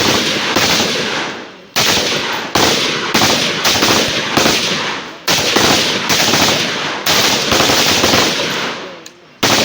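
INSAS 5.56 mm rifle fire: single shots at an uneven pace, roughly one a second, each sharp crack followed by a long echoing tail.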